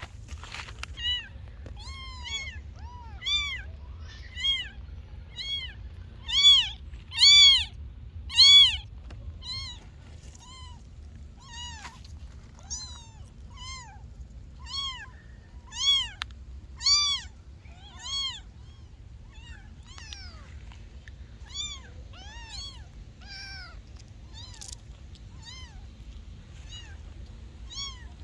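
Kittens meowing: a string of short, high-pitched mews, each rising and falling in pitch, coming about once a second. The loudest mews come around a third of the way in, and they thin out over the last third.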